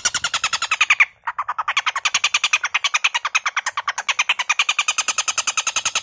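A caged tengkek buto (Javan kingfisher) giving its harsh, rasping call: a long, rapid rattle of about a dozen notes a second, broken by a short pause about a second in.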